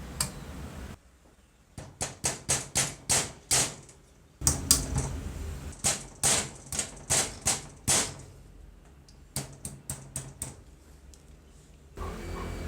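Repeated sharp taps of a tool striking metal parts, coming in quick runs of two to three a second with short pauses between the runs.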